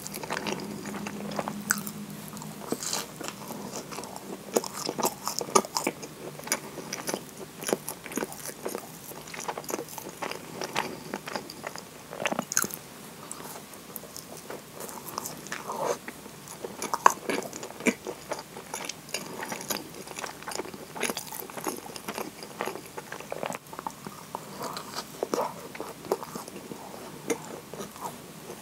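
Bites and chewing of a moist kinako (roasted soybean flour) scone dipped in maple syrup, with many small, irregular crunchy clicks throughout.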